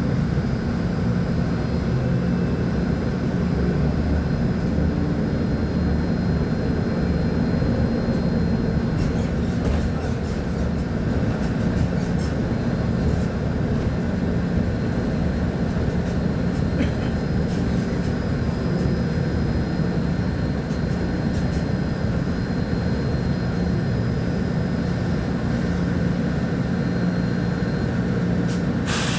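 Volvo B10M articulated bus's diesel engine running steadily, a low, even drone with little change in pitch. A brief burst of hiss comes right at the end.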